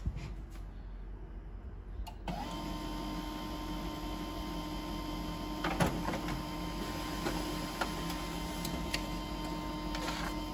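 Canon multifunction printer starting up about two seconds in and running steadily as it feeds and prints a page, with a few clicks and one louder clack near the middle; the printed sheet comes out of the front near the end.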